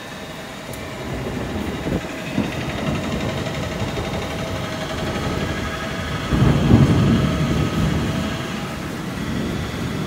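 Wind buffeting the microphone: a low rumble, loudest about six and a half seconds in, with a steady wavering hum underneath.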